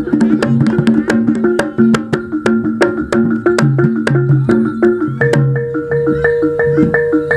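Javanese gamelan music for jaranan: pitched metal percussion plays a running melody of ringing notes over a steady beat of sharp, rapid clicks.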